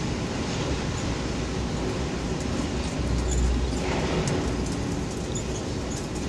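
Street traffic with a heavy vehicle rumbling past, loudest about three to four seconds in, with faint clinks and clicks in the second half.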